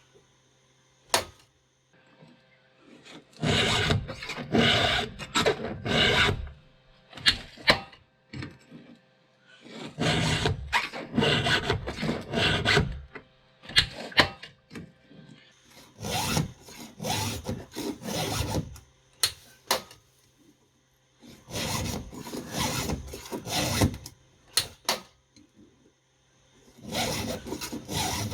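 Steel round file rasping across the cutter teeth of a Stihl MS361 chainsaw chain in five bursts of several strokes each, a few seconds apart, one tooth per burst. Short sharp clicks fall between the bursts.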